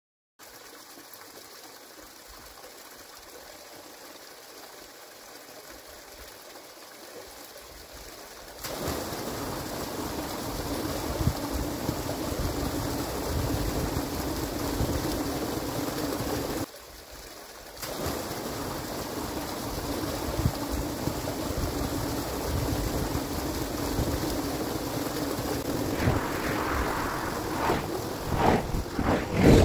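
Muddy water pouring steadily out of a corrugated roadside culvert pipe into a pool, the culvert flowing again after a beaver blockage inside it was partly cleared. The rushing gets abruptly louder about eight seconds in and drops away briefly around seventeen seconds. Near the end a vehicle passes on the road above.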